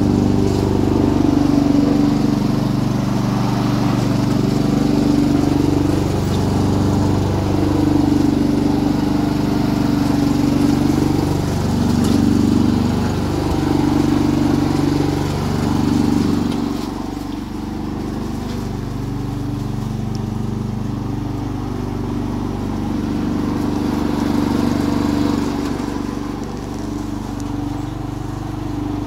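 Small petrol engine of a Honda Izy 466 SK walk-behind lawn mower running steadily, its pitch wavering slowly up and down, a little quieter from about halfway through.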